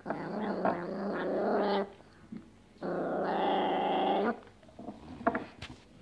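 Two long, steady growls, the first lasting nearly two seconds and the second about one and a half, with a pause between; a few short chewing clicks near the end.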